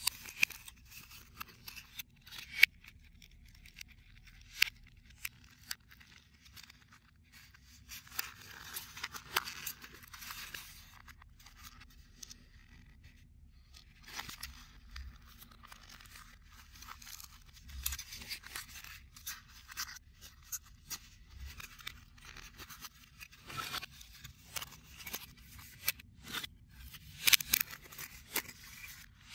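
Pieces of a CubicFun 3D card puzzle being handled and pressed together by hand: dry rustling and scraping of card against card, with irregular sharp clicks as tabs push into their slots.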